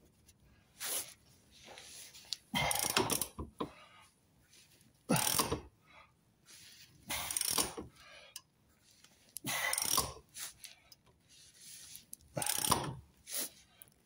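Socket ratchet clicking in short runs every two or three seconds as it winds a threaded draw tool, pressing a rear lower shock bush into a Jaguar XK8's shock absorber eye.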